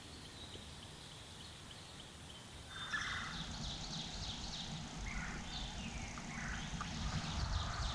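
Wild turkey gobbling: a rapid, rattling call starts about three seconds in and is followed by further calls over the next few seconds.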